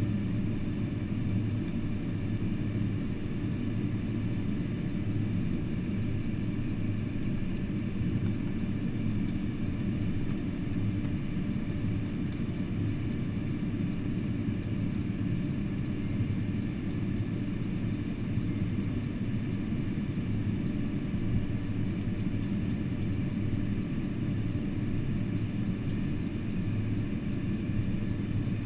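Steady low rumble of a Boeing 747-400 heard from inside the cabin while taxiing, with a faint steady high whine over it.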